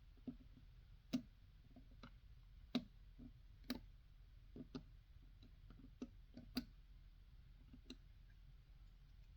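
Faint, irregular small clicks and taps of a plastic pry tool against the Joy-Con's plastic parts as the ribbon-cable connector latches are flipped open, about a dozen over several seconds.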